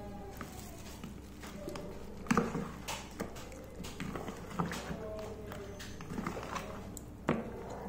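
Metal spoon stirring chicken pieces in a thick marinade in a plastic bowl: wet squelching with irregular taps and knocks of the spoon against the bowl, the loudest about two seconds in and again near the end.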